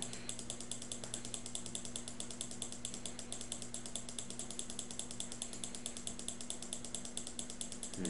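Rapid, even ticking, about eight ticks a second, over a low steady hum.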